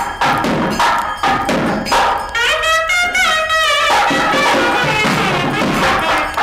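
Music: a drum struck about twice a second, with a wind instrument playing a wavering, ornamented melody for about a second and a half in the middle while the drumming drops out.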